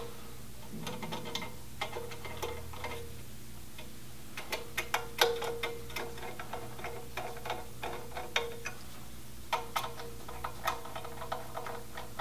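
Irregular light metallic clicks and ticks, in short clusters: small screws being turned in by hand with a small tool while a wire fan finger guard is fitted, metal tapping on metal.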